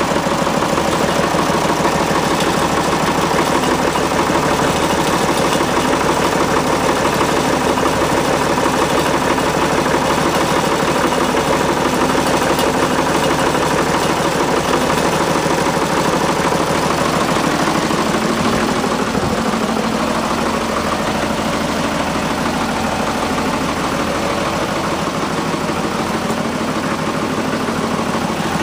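Loader's engine running steadily while it pulls upward on straps and a chain under load; the sound eases a little about two-thirds of the way through.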